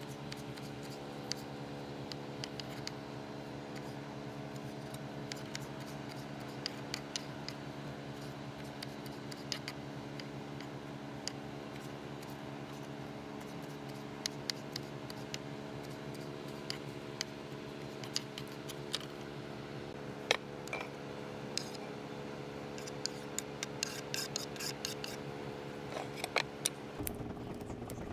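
Kitchen knife dicing tomatoes on a wooden cutting board: irregular sharp taps of the blade on the board, quickening into a busier run of chops near the end. A steady low hum runs underneath.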